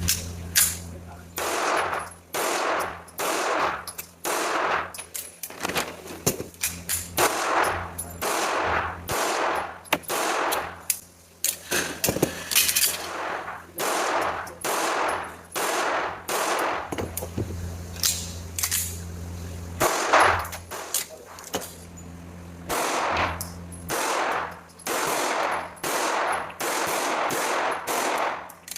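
Springfield Armory 1911 DS Prodigy pistol with a compensator, firing shot after shot, dozens in all at uneven spacing of about half a second to a second and a half. Each report has a ringing tail, and a steady low hum runs underneath.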